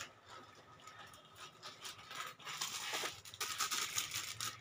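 Clear plastic jewellery packets crinkling and rustling as they are handled, busier and louder from about halfway through.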